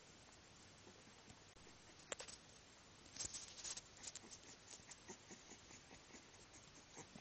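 Near silence with faint soft scuffling and scattered small clicks, a cluster of them about three seconds in, from a 24-day-old miniature bull terrier puppy crawling on a fleece blanket.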